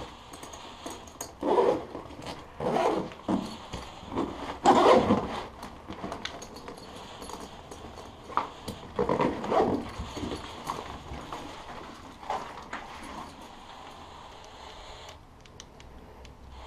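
Close rustling and knocking of a camera bag and DSLR being handled, in irregular bursts, loudest about five seconds in, with a few small clicks, settling down near the end.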